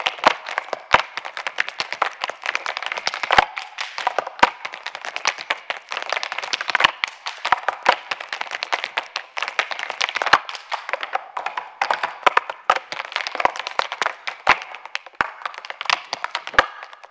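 Audience applauding: a dense, uneven patter of many hands clapping, with a few sharper single claps standing out.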